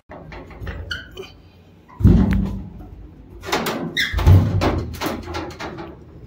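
A series of knocks and thumps, the loudest a heavy thump about two seconds in, followed by a quick cluster of knocks a second or so later.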